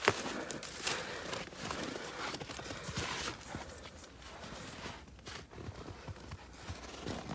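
Footsteps crunching through snow, a step about every half second, quieter for a couple of seconds after the middle.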